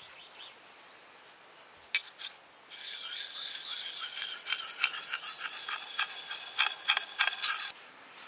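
Flat hand-held sharpening stone scraped in quick strokes along the edge of an axe bit, a rasping scrape with a high ringing tone. A couple of light clicks come about two seconds in; the strokes start just under three seconds in and stop suddenly near the end.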